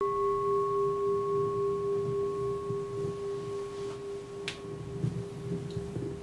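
A Buddhist bowl bell ringing out after a strike: one steady tone with a fainter higher overtone, slowly fading. A short sharp click sounds about four and a half seconds in.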